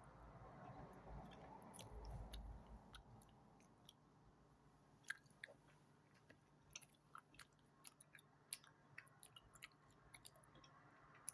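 Someone chewing Big Babol bubble gum close to the microphone: faint, irregular wet smacks and clicks of the mouth, coming thicker from about a third of the way in.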